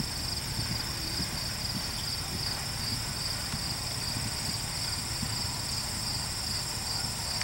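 Field insects chirring: a steady, fast-pulsing high drone. Faint hoofbeats of a cantering horse sound in the first second or so.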